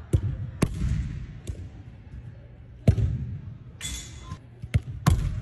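Soccer balls thudding on artificial turf and against a wooden target: about six sharp, irregularly spaced thuds from kicks, rebounds and bounces.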